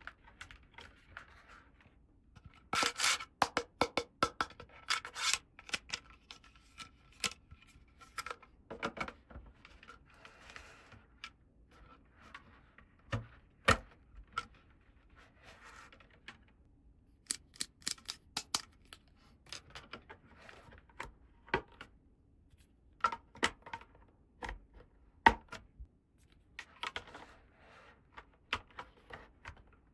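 Miniature toy furniture pieces being handled: irregular small clicks and taps as parts are set down and fitted, with soft rubbing and scraping between them.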